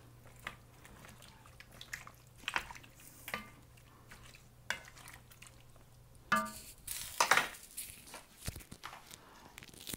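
Wooden spoon stirring chicken curry with potatoes and carrots in an enamelled pot: scattered scrapes and soft knocks against the pot, with a louder clatter about seven seconds in.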